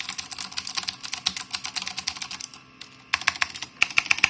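Fast typing on a Tesoro Durandal Ultimate mechanical keyboard with clicky Cherry MX Blue switches: a dense run of sharp clicks. It pauses briefly about two and a half seconds in, then comes back in two short flurries.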